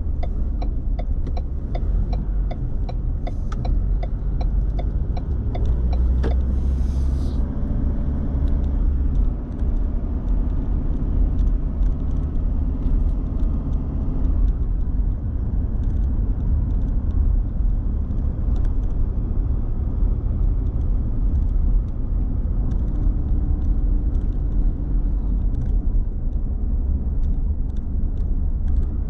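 Car driving, heard from inside the cabin: a steady low rumble of engine and road noise. For the first few seconds a turn-signal indicator ticks at about three a second, and a short hiss comes at about six seconds.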